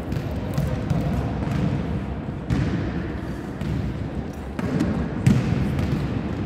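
Volleyballs being struck and bouncing on a sports-hall floor, scattered sharp thuds roughly a second apart that echo in the large hall.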